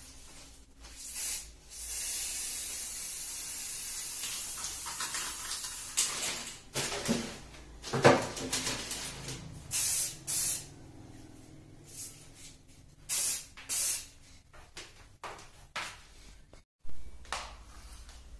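Aerosol can of silver spray paint spraying onto a metal tray: one long hiss of about four seconds, then several short bursts, with a few knocks and clicks between them.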